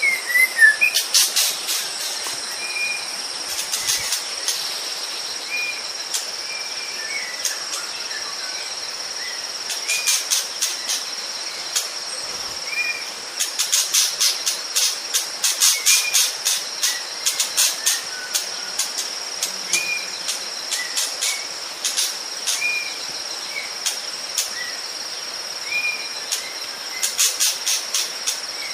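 Tropical forest ambience: insects holding a steady high drone, broken by bursts of rapid high-pitched pulsing, while a bird repeats a short whistled note every second or two.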